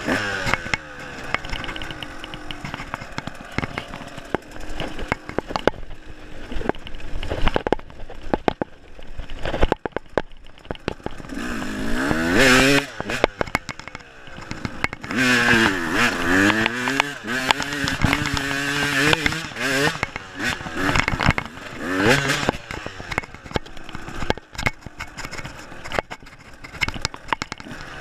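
KTM dirt bike engine being ridden, revving up and down as the throttle opens and closes, loudest around the middle. Many sharp knocks and clatter run through it.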